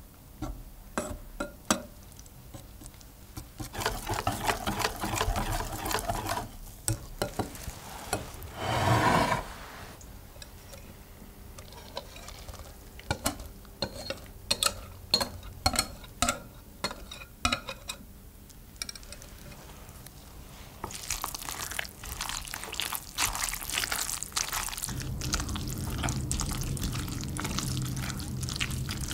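A metal balloon whisk beating eggs and flour in a glass bowl, with sharp clinks of the wires against the glass and short stretches of quick whisking. The batter is poured out, and over the last third a wooden spoon stirs it wetly through grated potato and carrot.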